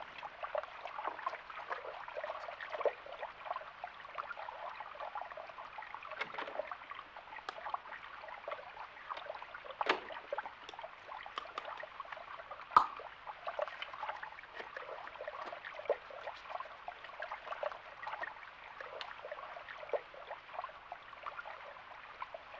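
Tap water running and splashing into a ceramic washbasin as hands are rinsed and rubbed under the stream, with a few sharp knocks, the loudest a little over halfway through.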